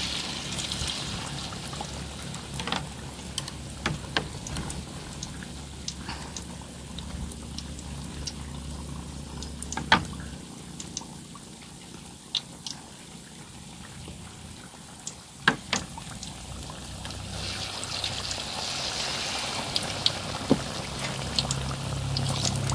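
Battered banana fritters deep-frying in a pan of hot oil. The steady sizzle eases midway and swells again near the end. A few sharp clicks stand out, the loudest about ten seconds in and twice around sixteen seconds.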